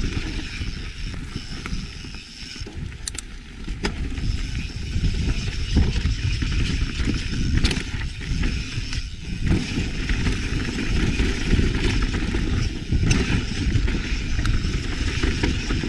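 Mountain bike riding down a rough, technical trail: a dense rumbling noise with irregular knocks and rattles as the bike rolls over rocks and roots.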